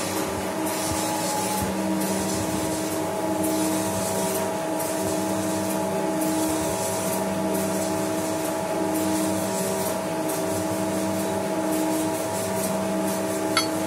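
A machine running steadily in the background: a hum of several held tones over a hiss, pulsing gently about every second and a half. A light click near the end.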